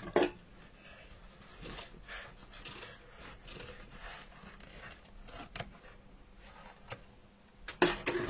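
Scissors cutting felt: soft snips with faint fabric rubbing and a few sharp clicks of the blades, and a brief louder noise near the end.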